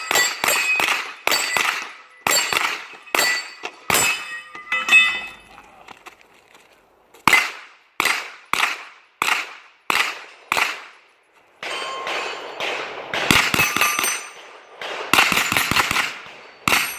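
9mm Tavor pistol-caliber carbine firing a string of shots at steel targets, with metallic ringing after the hits. The shots come steadily, stop for about two seconds partway through, then resume, with quicker bunched shots near the end.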